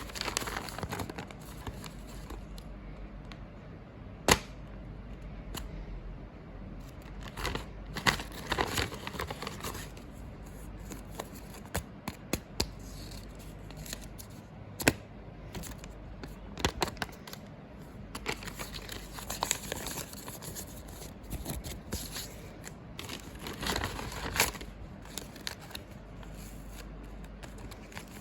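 Blind-bag packaging being crinkled and torn open, in repeated bursts with many sharp clicks and snaps spread through.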